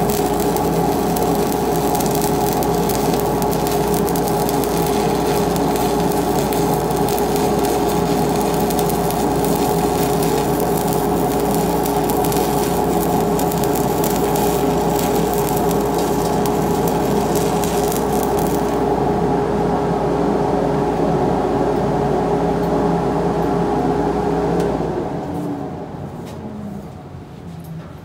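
Shielded metal arc (stick) welding with a 1/8-inch 6013 electrode at 85 amps DCEP, running a straight bead along a butt joint in steel plate: a steady crackle and hiss from the arc over a steady hum. The sound thins about two-thirds through and dies away near the end as the arc is broken.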